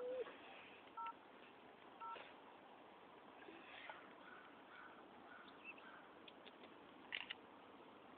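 A phone beeping three times, short two-note beeps about a second apart, just after a call is hung up. Then near silence with faint background hiss and a couple of faint clicks near the end.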